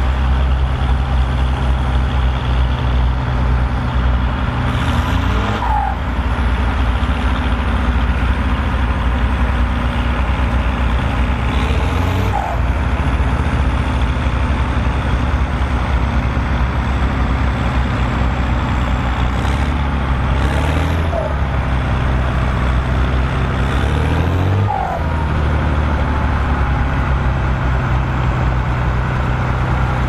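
Volvo BM tractor diesel engines running steadily under load while ploughing, a deep continuous engine drone that shifts briefly in pitch a few times.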